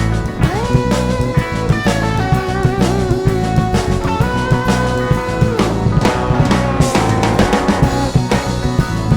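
Rock music with drum kit and electric guitar, the lead guitar bending and holding notes over a steady beat.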